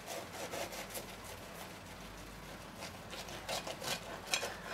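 Knife sawing through a grill-toasted tortilla burrito on a plate: a series of faint crisp scrapes and small clicks, a little louder in the last second.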